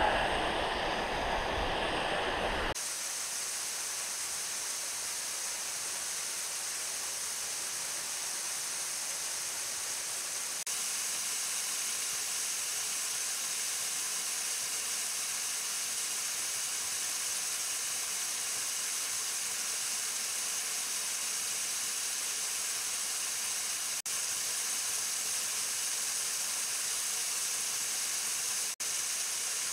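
A small waterfall pouring into a pool makes a steady rushing hiss. About three seconds in it changes abruptly to a thinner, higher hiss, with two brief dropouts near the end.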